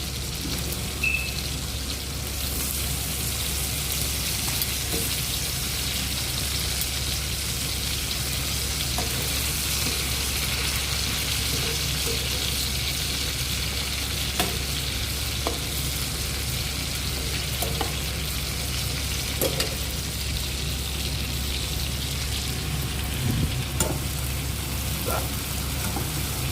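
Food frying in hot oil in a pan, a steady sizzle, with a few faint clicks of a utensil against the pan.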